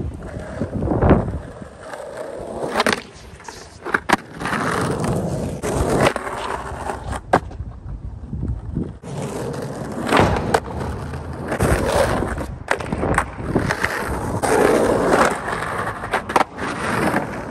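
Skateboard wheels rolling over rough asphalt, broken by many sharp clacks of the board popping and landing, and the scrape of the trucks and deck sliding along concrete curbs.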